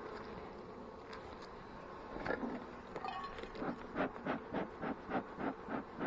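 Honey bees humming around an open hive. From about halfway in, a quick, even run of soft rustling strokes comes in at about three a second and grows louder.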